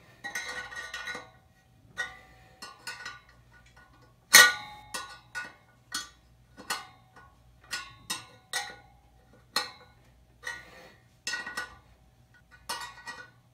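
A spoke wrench clinking against the steel spokes and nipples of a motorcycle wheel as the spokes are tightened one after another. Each clink leaves a brief metallic ring. There are about a dozen irregular clinks, the loudest about four seconds in.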